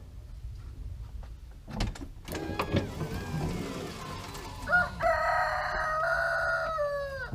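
RV door being shut with a few clicks and knocks, then the Kwikee electric step's motor whining steadily for about two seconds as the step retracts, its pitch dropping as it stops.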